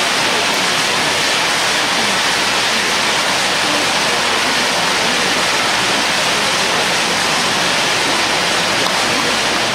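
Several tezutsu hand-held bamboo-tube fireworks spraying at once: a steady, loud rushing hiss from the gunpowder jets.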